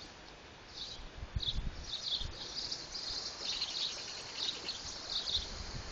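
High-pitched chirping repeating in short clusters, with a few soft low thumps.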